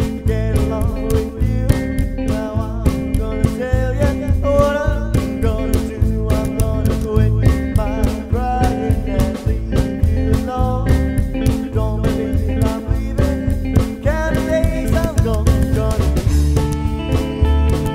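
Rockabilly band playing a fast number: upright double bass, drums and guitar, with a regular sharp beat throughout.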